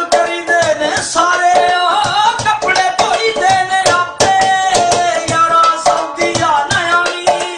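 A man singing, his voice gliding between long held notes, over quick sharp percussion struck by hand.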